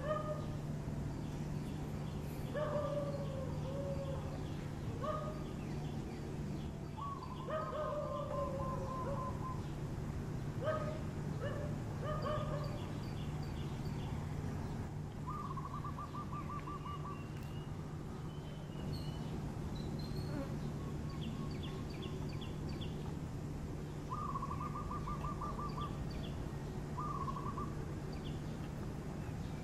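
Birds calling: repeated short, falling whistled notes, with a few quick trills in between, over a steady low hum.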